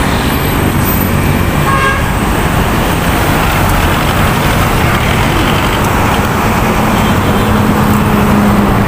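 Steady noise of road traffic passing close by. A low engine hum builds in the last couple of seconds as a vehicle approaches.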